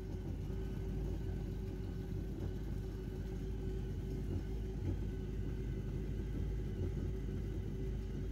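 Honda AquaTrax jet ski's four-stroke engine idling steadily, a low even rumble with a constant hum.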